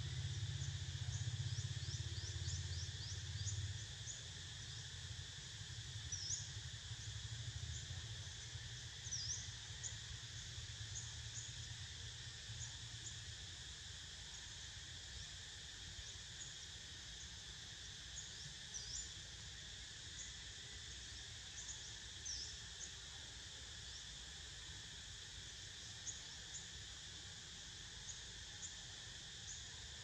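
Cicadas droning steadily in forest, a constant high buzz, with many short high chirps scattered through it. A low rumble fades away in the first few seconds.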